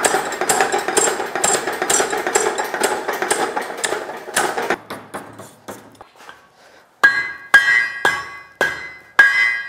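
A mechanical power hammer beats a red-hot iron tube in rapid blows for about five seconds, then stops. About two seconds later a hand hammer starts striking the hot iron on the anvil horn, about two blows a second, each one ringing.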